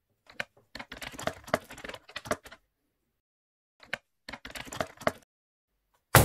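Rapid keyboard typing clicks in two bursts with a pause between them, then a single sharp thump near the end.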